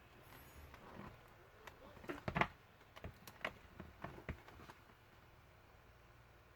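Handling of the laptop and its battery pack: a run of sharp clicks and knocks, the loudest about two and a half seconds in.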